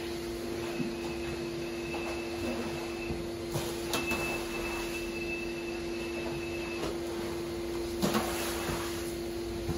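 A running motor hums steadily on one constant note, and water is sprayed from a spray nozzle onto a wet shag rug in two short hissing bursts, about four and about eight seconds in.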